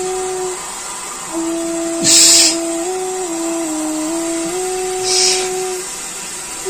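Two short hisses about three seconds apart, typical of breathing out during steam inhalation. Under them a steady whistling tone steps up and down between a few pitches.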